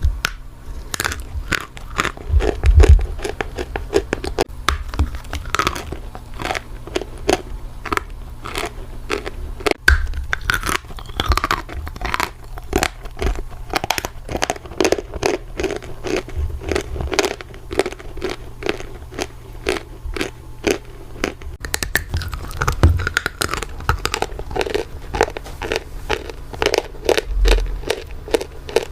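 Turkistan edible clay being bitten and chewed in big bites, close to the microphone: rapid, crisp crunches one after another.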